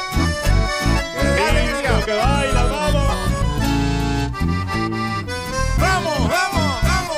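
Live band music: an instrumental passage led by button accordions over a strong, steady bass beat.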